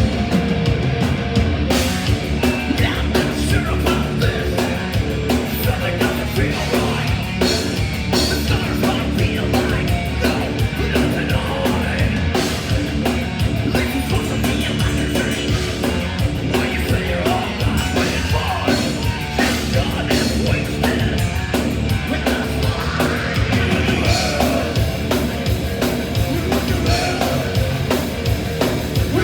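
A heavy metal band playing live at full volume, drum kit and amplified instruments dense and steady with no breaks.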